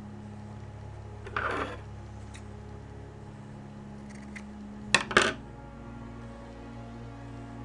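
Scissors cutting a square of cotton wick: a cut about a second and a half in, then two quick, sharp metallic snips about five seconds in. Soft steady background music underneath.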